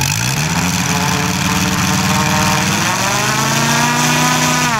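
Engine of a giant-scale radio-controlled model warplane on the ground, revved up from idle right at the start and held at high revs. It dips briefly, climbs to full revs, then drops back to idle near the end, as in a pre-flight run-up.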